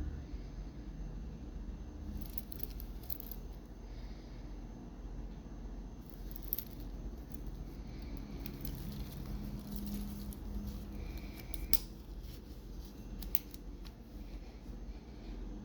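Scattered light clicks and brief rustles of a wristwatch and its packaging being handled, over a steady low hum.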